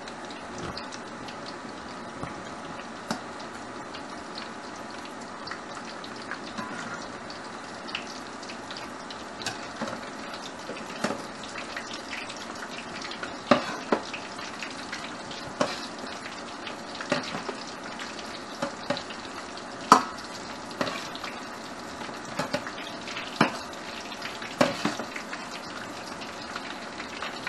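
Battered chicken breast pieces deep-frying in a wok of oil, a steady sizzle, with sharp clinks of a metal ladle as the pieces are stirred and turned, coming more often and louder from about ten seconds in.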